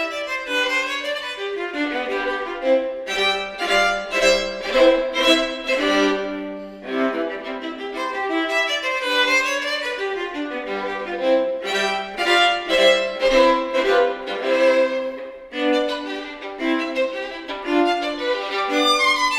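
Violin and viola playing a classical duo together, a busy passage of many short bowed notes with brief let-ups about seven and sixteen seconds in.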